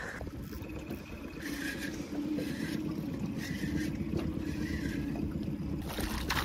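Spinning reel being cranked in quick repeated turns, a whirr about twice a second, while a hooked fish is fought on a bent rod, over wind and water around a small aluminium boat.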